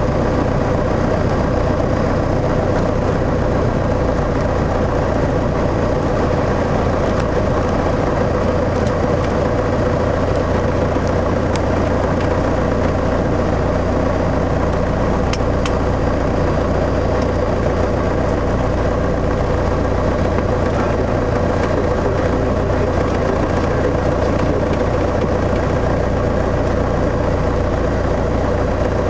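Piper PA-28-161's four-cylinder Lycoming engine running steadily, heard from inside the cockpit during the landing roll.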